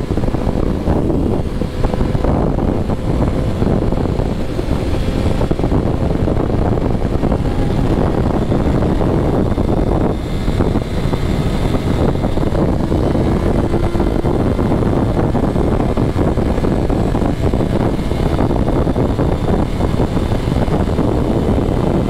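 Steady, loud rush of wind and engine noise from a sport motorcycle riding at highway speed.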